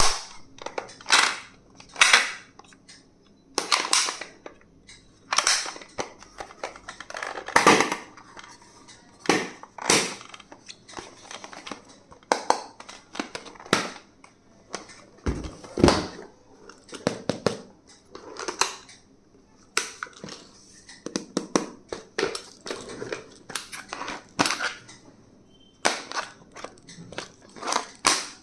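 Stationery being unboxed and handled close to the microphone: packaging crinkling and rustling, with irregular sharp clicks about once or twice a second.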